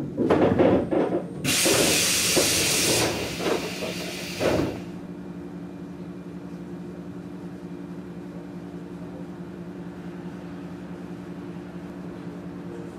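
Knocking and clatter aboard a stopped JR 115-series electric train, then a loud burst of compressed-air hiss about a second and a half in that dies away by about five seconds in. After it comes the steady hum of the train's onboard equipment as it stands at the platform.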